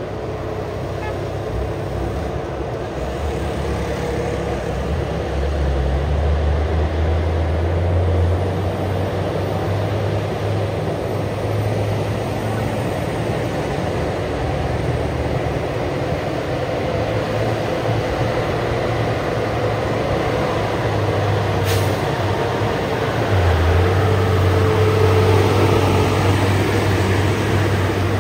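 Diesel engines of heavy Hino tank trucks driving past: a steady low engine drone that swells twice, about six seconds in and again from about 23 seconds, with a short sharp click or hiss near 22 seconds.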